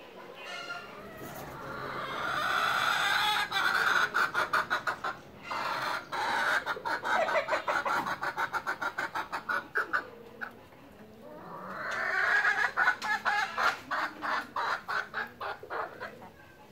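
An animal calling in two long bouts of quickly repeated notes, about four a second. The first bout builds up over the first few seconds and runs to about ten seconds in; the second starts after a short pause and fades out near the end.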